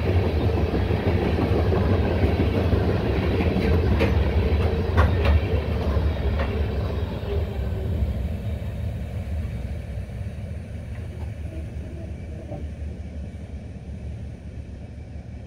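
Freight train of covered grain hopper cars rolling past on the rails: a steady low rumble of steel wheels on track, with a few sharp wheel clicks about four to five seconds in. After the last car goes by, about eight seconds in, the rumble fades as the train moves away.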